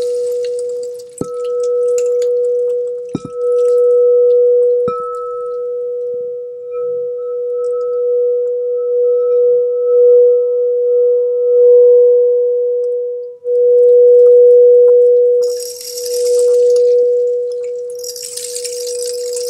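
Frosted crystal singing bowl ringing one steady, pure tone: struck with a mallet three times in the first five seconds, then sustained with a tone that swells and wavers. Near the end a rain stick's falling beads add a soft hiss, twice.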